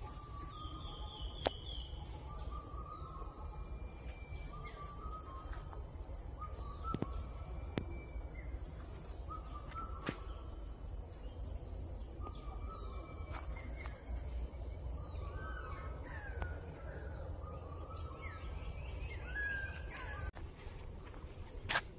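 Forest birds calling: short calls repeated every second or two, with higher chirps between them, over a steady high-pitched hiss and a few sharp clicks.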